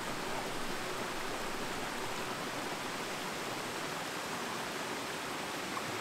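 Small waterfall and stream, water running and splashing over rocks in a steady, even rush.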